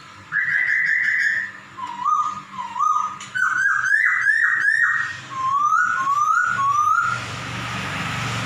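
Caged poksay (laughingthrush) calling a run of rising, meow-like whistled notes: one longer note, then single upswept notes and a quick chain of them. Near the end the calls stop and a steady low rumble with hiss sets in.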